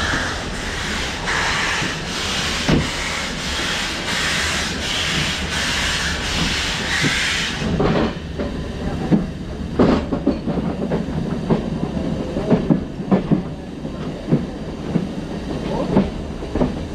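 Steam train of HG 3/4 locomotive BFD 9, heard from a carriage window: a loud hiss of steam with regular chuffing pulses, which falls away about eight seconds in, leaving the carriage wheels knocking and clattering irregularly over the track.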